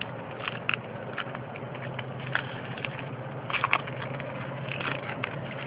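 Trading cards being handled and flipped through: light, irregular clicks and flicks of card stock, over a steady low hum.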